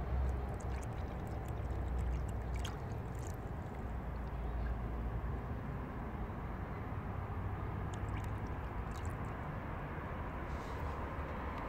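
Diesel fuel from the fuel filter housing trickling and dripping as it is strained through a cloth, faint small drips and splashes over a steady low rumble.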